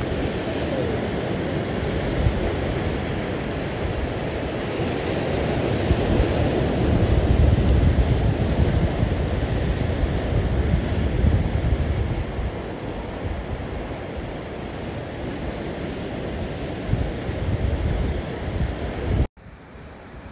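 Ocean surf breaking and washing over coastal rocks, with wind buffeting the microphone; it swells louder around the middle, then cuts off abruptly near the end to a much quieter hiss.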